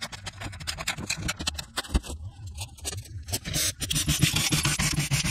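Hand ratchet clicking and scraping as 10 mm bolts are turned out of an EV power inverter's metal housing: a fast, uneven run of sharp clicks that thins out briefly in the middle.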